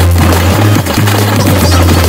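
Loud music with a heavy, sustained bass line and fast, dense percussion.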